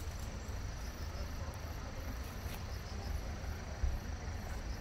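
An insect trilling steadily on one high pitch, over a low rumble of microphone noise that swells briefly near the four-second mark.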